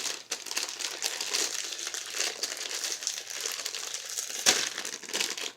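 Crinkly plastic candy bag being opened and handled: continuous rustling and crackling, with one sharper snap about four and a half seconds in.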